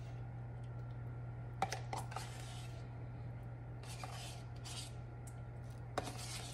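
A spoon scooping sour cream out of a plastic tub: a few light clicks of the spoon against the tub, and two short bouts of scraping a few seconds in. A steady low hum runs underneath.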